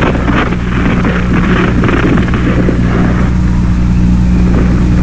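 A loud, steady engine drone.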